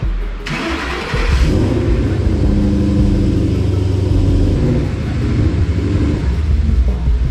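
Ford Mustang GT's V8 running through its axle-back exhaust, which has been freshly re-clamped to the over-axle pipes. The note steps up about a second in and then holds fairly steady.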